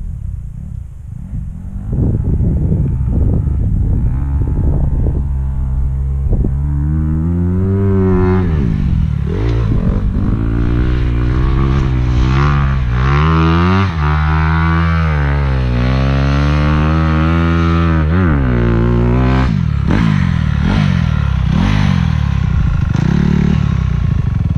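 Dirt bike engine being ridden hard, its pitch rising and falling as the throttle is opened and closed and the gears change. It is quieter for the first couple of seconds, cuts out briefly about halfway, and runs at lower revs near the end as the bike slows.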